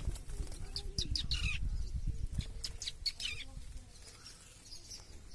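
Sparrows chirping: a quick run of short, high chirps that thins out after about three and a half seconds, over a low rumble on the microphone.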